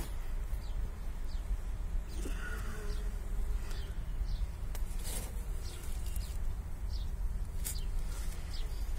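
Wild honeybees buzzing at their exposed comb, a steady low hum, with a few faint clicks.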